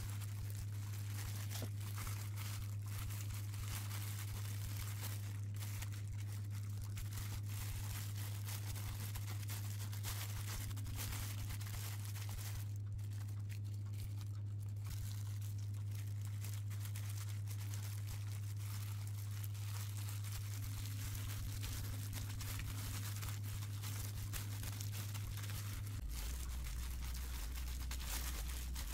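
Thin disposable plastic gloves crinkling and rustling as hands press rice into fried tofu pouches, with a pause about halfway through. Under it runs a steady low hum that drops to a lower pitch near the end.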